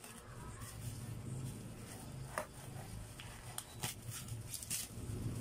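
Black bubble-wrap plastic and packing tape being pulled and cut open with a knife: scattered crinkles, scrapes and a few sharp clicks, over a low steady hum.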